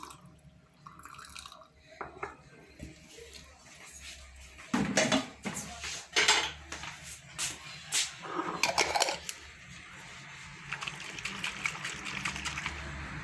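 A cooking pot and utensils clinking and knocking against a bottle as homemade honey-and-citrus cough syrup is poured into it, with a trickling hiss of liquid near the end.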